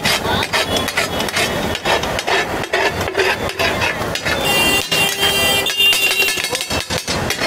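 Flat metal spatula striking and scraping a large tava griddle as pav bhaji is mashed and spread on it. The strikes come as a rapid, uneven run of clanging knocks.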